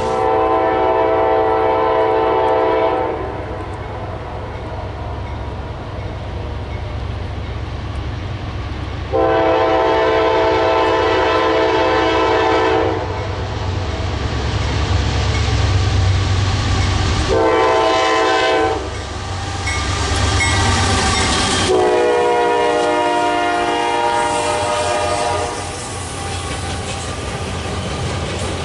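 Diesel freight locomotive's multi-chime air horn sounding the long-long-short-long grade-crossing signal, over the low rumble of the passing train.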